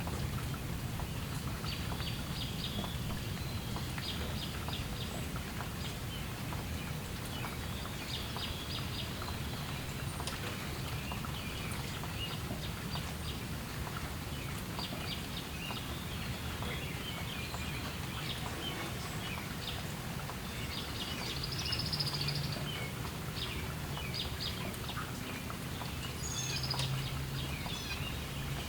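Steady light rain with a low background rumble, while small birds chirp in short quick runs throughout.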